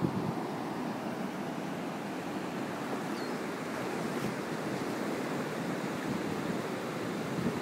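Ocean surf washing up on a sandy beach: a steady, even rush of waves.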